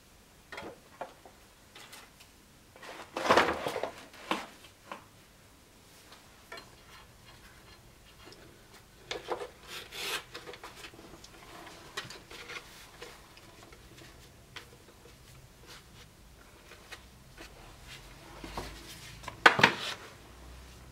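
Leather and wooden scabbard parts handled on a workbench: rubbing and rustling with scattered light knocks. There is a louder rustle about three seconds in and a sharp, loud knock near the end.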